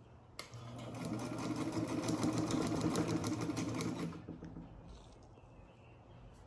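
Vintage Japanese Modern Home electric sewing machine, freshly oiled and fitted with a new belt, sewing in reverse: a click as it starts, then a rapid even ticking of needle strokes over the motor's hum, stopping about four seconds in.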